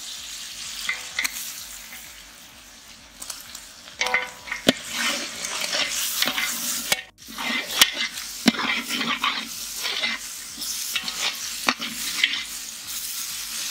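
Onion and tomato masala sizzling in oil in a large aluminium pot while a metal ladle stirs ginger-garlic paste through it, scraping and clinking against the pot's sides and bottom. The stirring is quieter for a couple of seconds, then picks up again about four seconds in.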